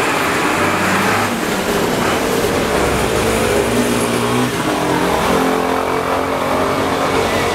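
A motor vehicle's engine running close by, its pitch stepping up and down several times as it revs and settles.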